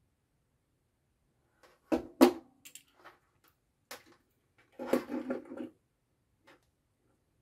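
A plastic relay socket and a metal-bodied push button being handled and set down on a desk: two sharp knocks about two seconds in, a few light clicks, then a short clatter of parts and wires about five seconds in.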